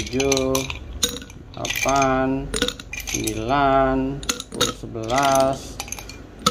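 Ice cubes dropped one at a time into a tall glass bottle, clinking and knocking against the glass. Four times, a short pitched tone with a rising start comes with a drop and is louder than the clinks.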